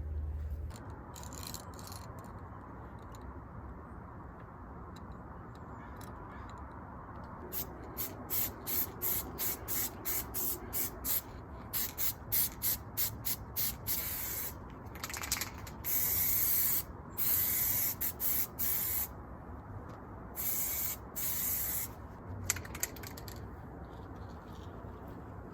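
Aerosol spray paint can laying on a base coat: quick short hisses, two or three a second, then longer sprays of one to two seconds each.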